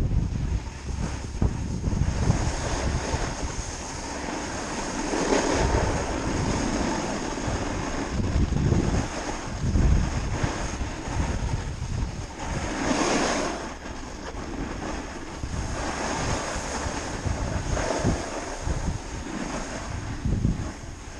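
Wind buffeting the microphone with the hiss of a snowboard sliding over snow, swelling and easing several times.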